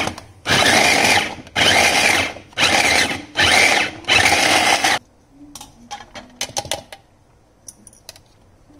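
Electric vegetable chopper pulsed in about five short bursts, its motor and blade whirring through carrots and chopping them fine. It stops about five seconds in, followed by a few light clicks and taps of the plastic bowl and lid being handled.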